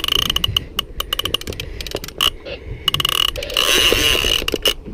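Big conventional saltwater reel clicking in rapid runs of ticks, with short pauses between them, while a hooked bull shark is fought on it.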